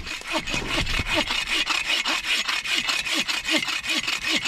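Bow saw cutting through a thin standing tree trunk with quick, even back-and-forth strokes, the blade rasping through the wood.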